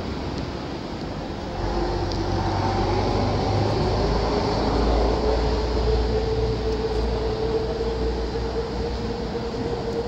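Heavy motor traffic in the street. A low engine rumble swells about a second and a half in, with a single engine note that climbs slowly and then holds steady.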